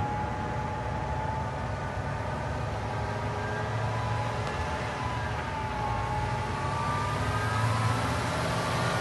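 Diesel engine of a MAN heavy-haulage truck running as it approaches slowly with a heavy trailer load, a steady low rumble with a higher whine above it that slowly wavers in pitch, growing a little louder near the end.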